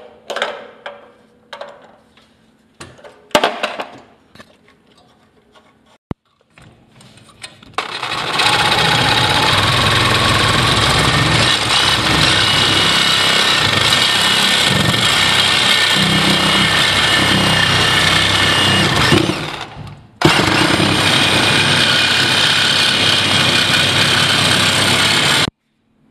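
A few light clicks and knocks of pliers on a pipe fitting, then a power tool runs loud and steady for about twelve seconds, stops briefly, runs again and cuts off suddenly near the end.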